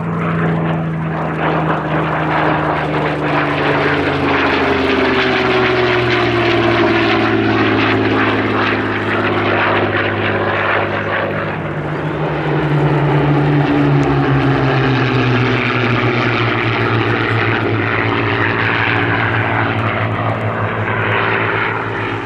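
Hawker Hurricanes and Spitfires flying past, their propeller-driven piston engines running loud and steady. The engine note slides down in pitch as the aircraft pass, first from about four seconds in and again from about fourteen seconds in.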